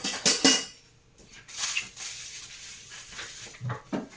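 Kitchenware being handled for washing at the sink: a few sharp knocks and clinks near the start and again near the end, with a steady rushing noise through the middle.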